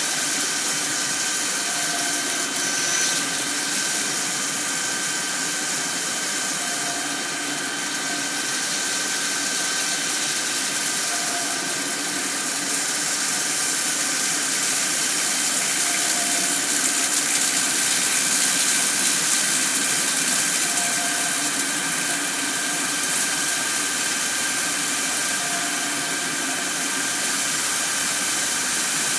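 Mori-Seiki SL-2H CNC lathe running while turning 6061 aluminium bar: a steady hiss, like coolant spraying, under a machine whine with several steady high tones. A faint short tone recurs about every four to five seconds.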